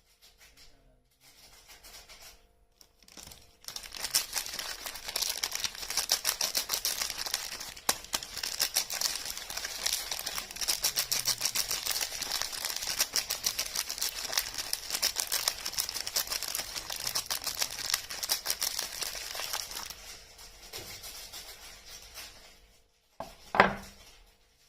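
Soap packaging being crinkled and torn open: a dense run of crackling that starts a few seconds in and fades out near the end. A single sharp knock follows.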